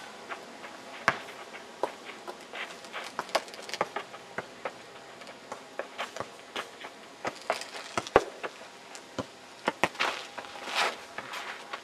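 Footsteps crunching on dry, gritty dirt and leaves: irregular sharp clicks and taps, a few louder than the rest.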